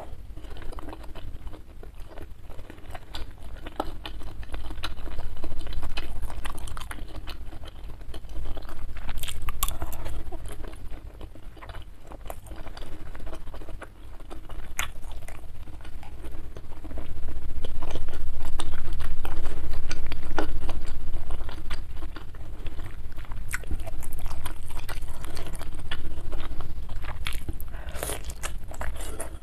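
Close-miked chewing and wet mouth sounds of a person eating egg-stuffed beef meatballs (bakso telur) in spicy broth, with scattered sharp clicks and taps throughout.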